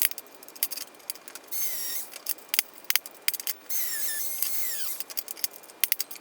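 Handheld grinder run in two short bursts, its high whine holding steady and then dropping in pitch as it winds down, with sharp clicks and knocks of metal being handled in between.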